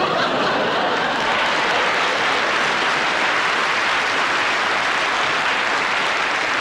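Studio audience applauding at a steady level.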